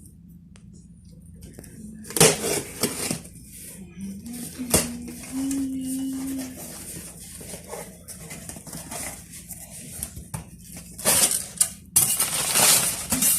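A shipping box and its packing being opened and handled by hand: bursts of rustling and scraping, with a sharp knock about five seconds in.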